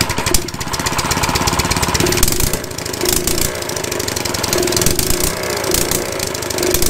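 Harbor Freight small engine, freshly swapped onto a minibike, running just after its first start. Its idle is not yet set.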